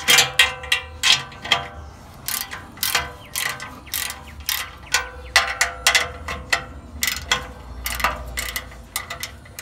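Hand ratchet wrench clicking in repeated strokes while loosening the old exhaust's muffler bolts, each click followed by a short metallic ring from the pipe.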